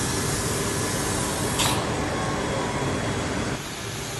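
GROB machine tool roughing a billet engine block: heavy coolant spray and the milling cutter make a steady hiss with faint steady tones running through it. There is a brief high-pitched burst about a second and a half in, and the noise drops a little quieter near the end.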